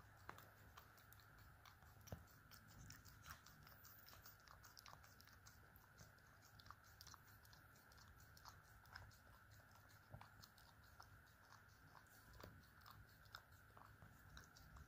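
Faint wet licking and lip-smacking of a Boston Terrier puppy working at an ice cream cone: many small, irregular clicks in quick succession over a steady low hum.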